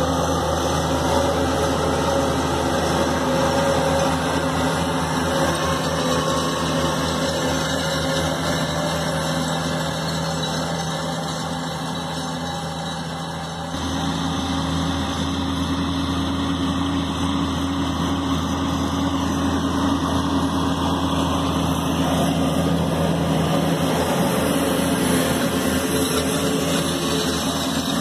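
Case MXM 120 tractor's diesel engine running steadily under load while pulling a slurry tanker and trailing injector across grassland. The sound shifts abruptly about halfway through.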